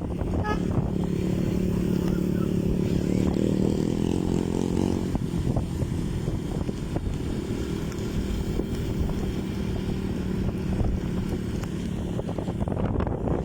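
A boat's engine running steadily, with wind noise on the microphone. About three to five seconds in, the engine note swells as if revved and then eases back.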